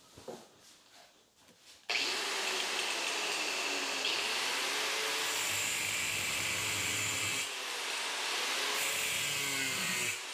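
Electric angle grinder switched on about two seconds in and running with a steady whine as it grinds into steel stock clamped in a vise, throwing sparks. The sound drops briefly around seven seconds in, then carries on.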